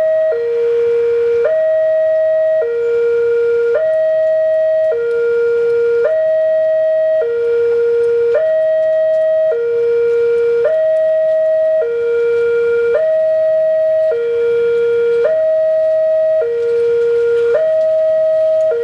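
Railway level-crossing electronic warning alarm sounding a steady two-tone signal. It alternates evenly between a higher and a lower tone, each held about a second, warning that a train is approaching.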